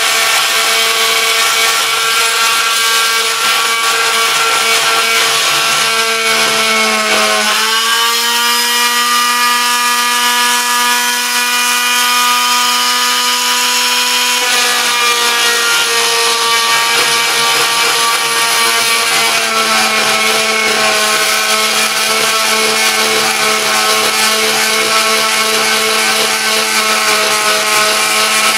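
Deko oscillating multi-tool running and cutting into a wood slab: a loud, steady buzzing whine. About seven seconds in its pitch rises a little and holds, then drops back about halfway through.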